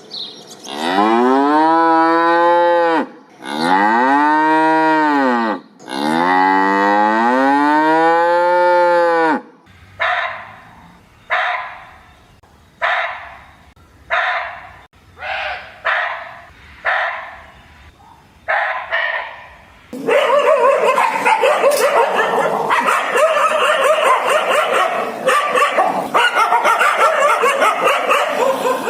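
Cow mooing: three long, drawn-out moos, each rising and then falling in pitch. Then about a dozen single dog barks, a little under a second apart, giving way about two-thirds of the way through to a dense din of many dogs barking and yipping at once.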